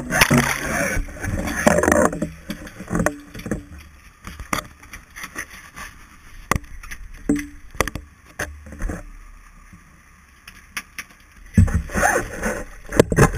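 Water churning and splashing alongside a fishing boat, giving way to a quieter stretch of scattered sharp knocks and taps, then rushing, splashing water again near the end.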